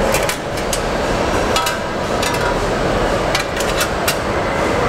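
Car-plant assembly line: a steady machinery din with scattered sharp metallic clicks and clanks, several in quick pairs, as metal body parts are set into a holding fixture by hand.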